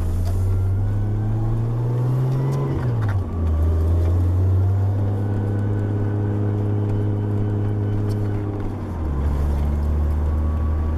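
Nissan 240SX's swapped RB20DET turbocharged inline-six heard from inside the cabin while driving. The engine note climbs under acceleration, drops sharply at an upshift about three seconds in, then holds steady in the higher gear.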